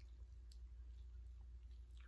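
Near silence: steady low room hum with two faint clicks, one about half a second in and one near the end.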